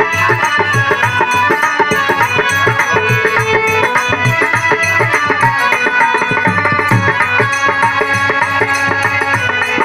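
Instrumental interlude of Birha folk music: a hand drum keeps a steady, repeating beat under sustained melody lines.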